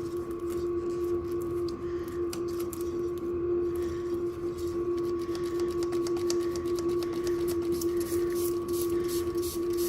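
A small electric motor running with a steady, even hum, with faint scattered clicks over it.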